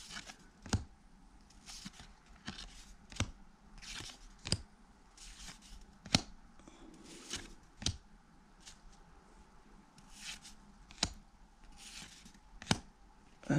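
1991 Pacific football cards being flipped through one at a time in the hand: soft sliding swishes of card on card, with a sharp snap of a card edge every second or two.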